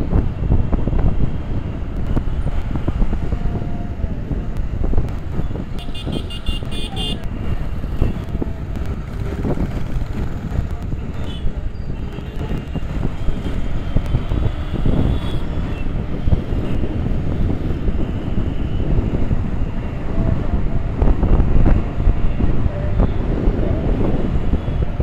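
Steady wind noise buffeting the microphone of a moving rider in road traffic. A vehicle horn honks once for about a second, around six seconds in.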